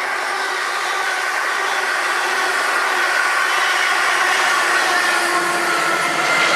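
London Midland Class 350 electric multiple unit passing close at speed: a steady whine from its traction equipment over wheel and rail rush. Near the end a diesel freight locomotive's low engine note comes in as it approaches.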